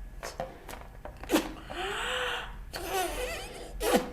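A person blowing up a rubber balloon: a quick, sharp breath in, then a long blow of air into the balloon lasting about a second, with another quick breath in near the end.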